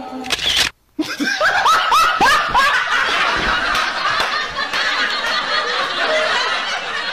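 Laughter from several people, a dense mass of laughs with short rising and falling cries. It starts abruptly about a second in, after a brief cut to silence.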